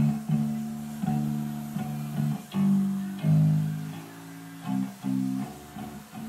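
Guitar music with a strong bass line playing through the upgraded stereo speakers of a 2008 Harley-Davidson Road Glide, including a speaker set in the saddlebag lid.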